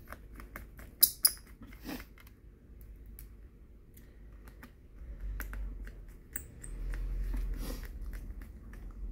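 Small screwdriver turning screws into a laptop motherboard, with scattered faint clicks and ticks of the bit and screws and two sharp clicks about a second in.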